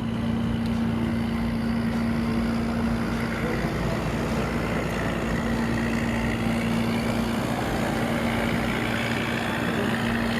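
A fishing boat's engine running steadily, a constant droning hum under an even rush of noise.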